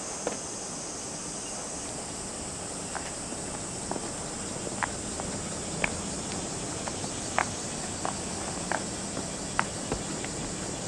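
Outdoor ambience of steady high-pitched insect noise, with scattered light clicks and taps coming irregularly about once a second.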